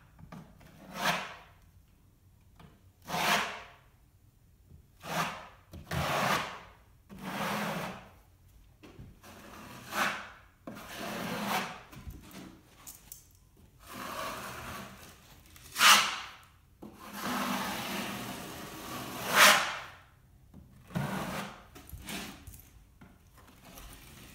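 A 12-inch drywall taping knife scraping joint compound across a textured wall in repeated strokes, a little over one a second to one every two seconds, varying in length and loudness: a skim coat being spread on and wiped back off to float the texture smooth.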